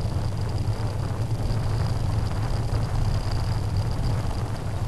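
Steady low rumble of a bicycle rolling over a rutted, muddy dirt path, picked up by a camera mounted on the bike, with a faint steady high whine on top.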